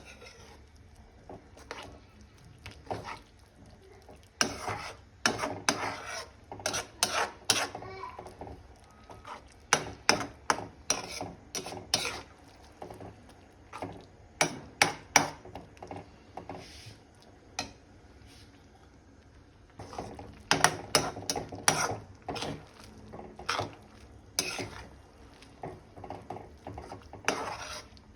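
A spoon or spatula stirring noodles in a cooking pan, in bursts of quick scraping clicks against the pan with a few short pauses.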